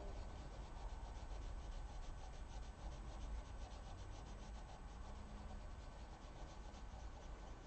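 Prismacolor coloured pencil shading on paper: faint, quick back-and-forth strokes scratching in a steady rhythm, several a second.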